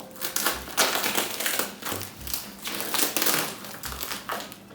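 Packaging rustling and crinkling, with scattered taps and a few soft thumps, as a mechanical keyboard is worked out of its box.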